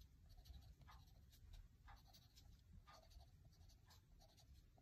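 Faint scratching of a graphite pencil on watercolor paper: short shading strokes, the stronger ones roughly once a second.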